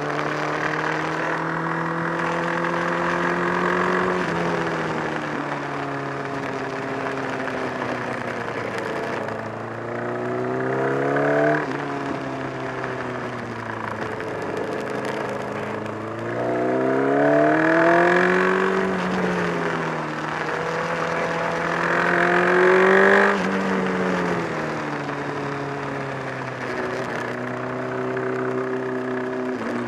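Honda CBR1000RR inline-four engine running under load, its pitch climbing three times and dropping abruptly as the throttle closes each time. The engine has developed a flapping, battering noise from around the engine along with a loss of torque.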